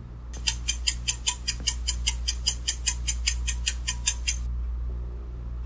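Countdown-timer ticking sound effect: a fast, even run of sharp clock ticks, about five a second, lasting about four seconds before it stops, over a steady low hum.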